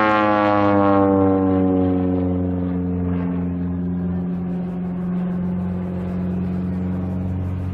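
Zlin Z-50 aerobatic plane's piston engine and propeller droning overhead as it pulls up into a vertical climb trailing smoke. The pitch falls over the first two seconds, then holds steady.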